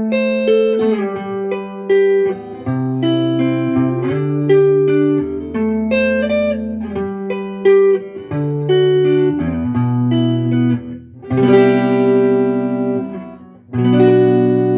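Fender Modern Player Jazzmaster electric guitar played through its neck pickup with a little reverb: a melodic run of single notes and double-stops, then fuller strummed chords about 11 seconds in and again near the end.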